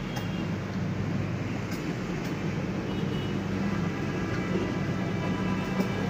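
Steady mechanical droning hum of workshop machinery, with a few short metallic clicks from a steel tyre lever against the rim and tyre bead.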